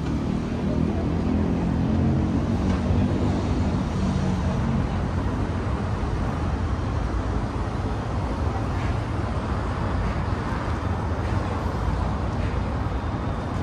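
City street traffic: a motor vehicle's engine running close by for the first few seconds, then fading into a steady rumble of traffic.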